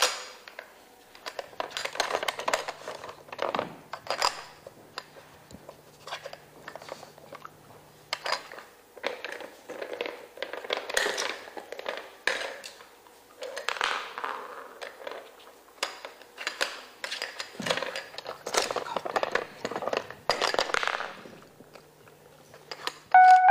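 Plastic pieces of a Trixie Flip Board dog puzzle clicking and clattering irregularly as a dog noses and paws at its cones and sliding covers.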